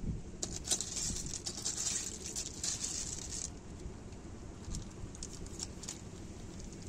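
Snail shells clicking and rattling against each other as hands rummage through a heap of snails: a dense patter of small clicks for the first three seconds or so, then fewer, scattered clicks.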